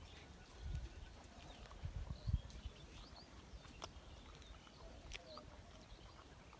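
Faint birds chirping now and then, with a few low thumps in the first two and a half seconds.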